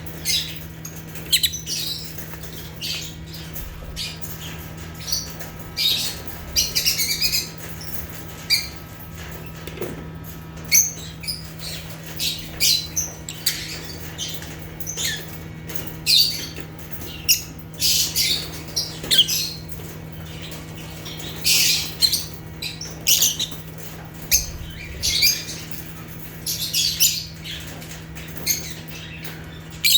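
African lovebirds (Agapornis) chirping and squawking: short, shrill calls coming in quick, irregular clusters.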